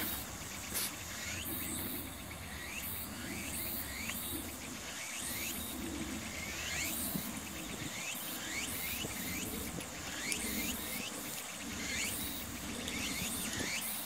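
Insects calling in a late-summer chorus: a steady high pulsing buzz with short chirps repeating roughly once a second, over a low steady rumble.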